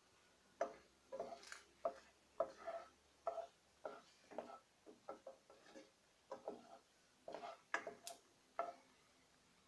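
Faint, irregular taps and light scrapes of a spatula stirring whole cumin seeds and dry red chillies around a pan of hot oil.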